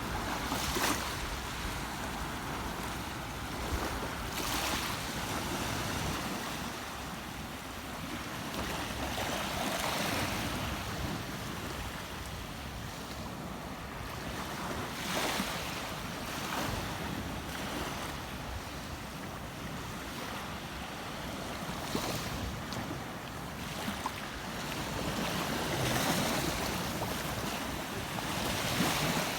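Rushing water of a river or stream: a steady, even hiss that swells in surges every few seconds.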